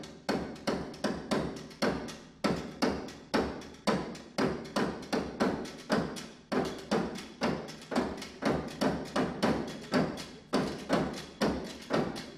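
Live percussion: an even, steady pulse of sharp knocks, about two and a half strikes a second, each ringing briefly.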